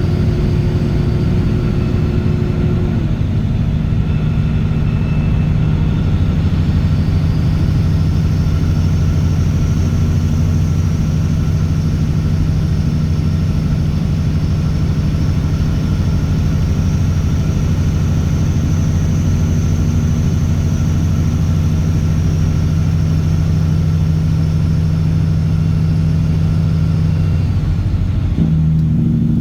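Straight-piped Caterpillar C15 ACERT diesel truck engine pulling steadily on the road, a loud, even low drone. Near the end its note breaks and changes briefly.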